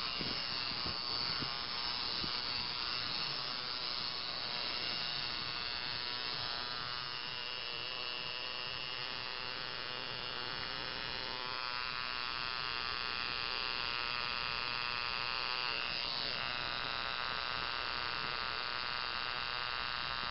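Coil tattoo machine buzzing steadily as its needle works ink into skin.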